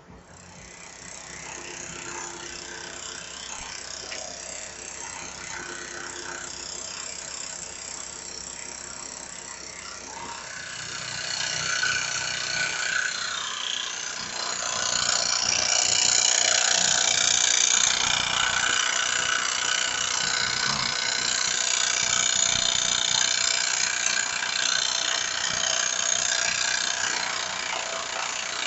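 Small homemade brass engine being spun over by its little electric starter motor, a continuous mechanical clatter of piston and valves. It turns over without firing, as the ignition is giving no spark. The clatter builds over the first couple of seconds and grows louder about a third of the way in and again near halfway.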